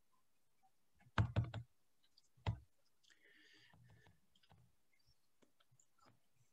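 Faint clicking at a computer: a quick run of about four sharp clicks about a second in, a single click a moment later, then a soft rustle and a few light scattered ticks.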